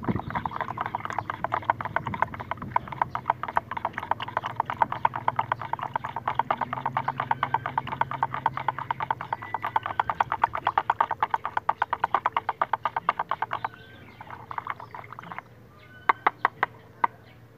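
An animal calling in a rapid, even trill of clicking pulses that stops about fourteen seconds in, then sounds again in a short burst. A few sharp clicks follow near the end.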